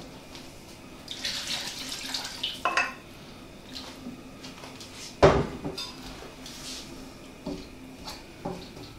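A wooden spoon stirs chicken pieces in stock in a frying pan, with wet stirring noise and light knocks against the pan, the loudest a single sharp knock about five seconds in.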